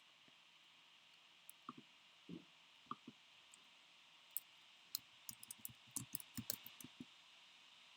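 Faint, scattered short clicks over near-silent room tone: a few single clicks in the first half, then a quick run of clicks in the second half.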